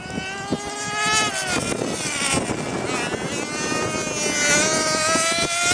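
Nitro glow engine of a radio-controlled buggy running at high revs with a high whine; the pitch falls as the throttle eases about a second in, then climbs steadily again over the last few seconds.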